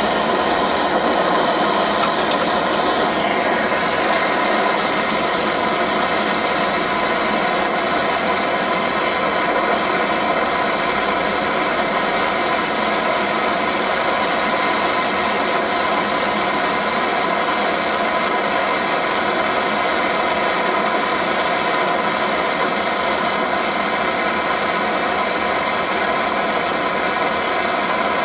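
Small gas burner's flame running with a steady, unbroken hiss as a drinks can is heated over it.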